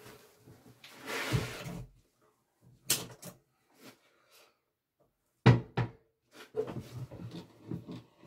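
Handling sounds at a steel bench vise: a short rustle about a second in, a single knock, then two sharp clunks about five and a half seconds in, the loudest of the lot, followed by lighter clatter and knocks.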